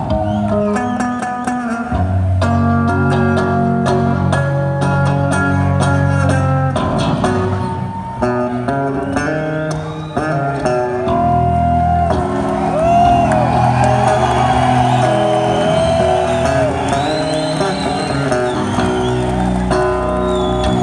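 Live rock band heard from the audience in an arena: guitar, bass and drums playing a slow song, with a lead line of slow pitch bends about halfway through.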